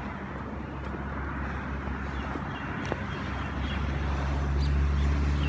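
Road traffic, with a motor vehicle's engine hum growing steadily louder over the last couple of seconds as it draws near.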